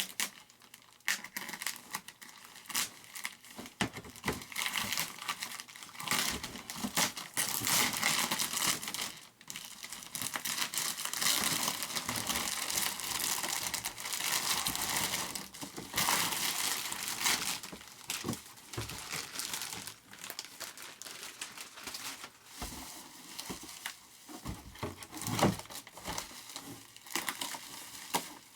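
Packaging crinkling and tearing, with irregular crackles and rustles throughout, as a kit part is unwrapped by hand.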